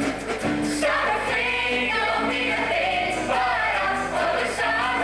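Stage chorus singing together with musical accompaniment.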